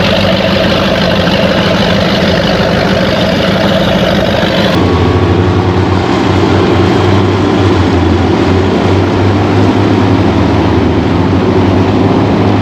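Motorboat engine running steadily at low speed, close by. About five seconds in the tone changes abruptly to a deeper, heavier note.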